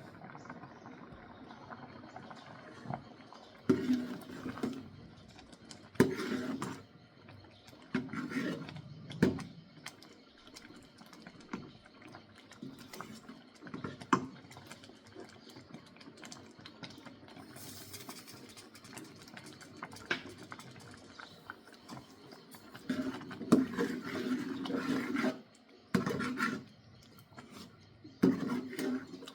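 Kitchen cooking sounds: irregular clatter and scraping of utensils and cookware, with sharp clicks, coming in short bursts.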